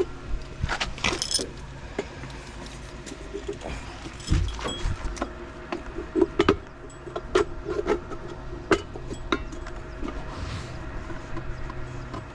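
Scattered metallic clicks, taps and knocks of hand tools being handled and struck on a job, over a steady low hum.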